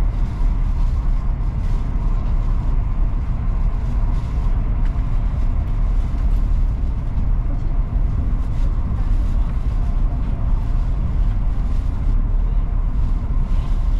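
Cabin noise of a high-speed train running at speed: a steady low rumble with a faint steady tone above it.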